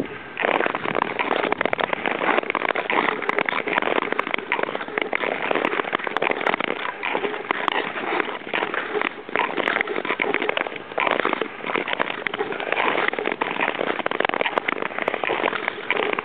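Nordic touring skate blades gliding and scraping over lake ice, a continuous dense crackling hiss with brief lulls between strides.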